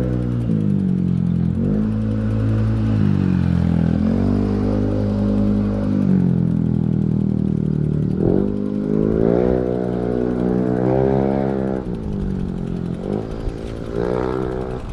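A motor engine running close by, its pitch rising and falling again and again as the revs change.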